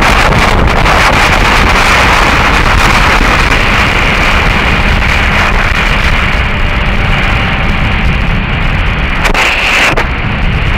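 Heavy wind rush over the microphone of a Suzuki GSX-R 1000 K6 sportbike at track speed, with its inline-four engine running underneath. The rush eases slightly near the end.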